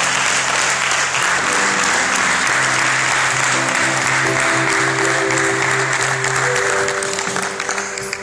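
People clapping loudly and steadily, over instrumental music with long held notes; the applause thins out near the end.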